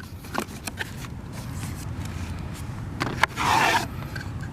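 Cardboard box and packaging being handled as the contents are pulled out: a few small clicks and knocks, then a louder scraping rustle for about half a second past the three-second mark, over a low steady rumble.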